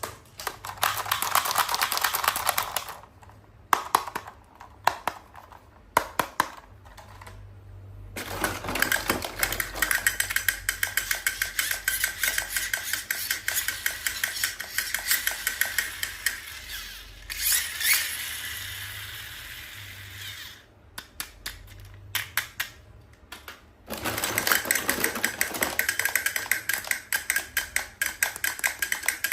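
Toy packaging being handled and opened: dense runs of fast crackling clicks, broken by a few separate sharp taps between about 3 and 8 seconds in and again around 21 to 24 seconds.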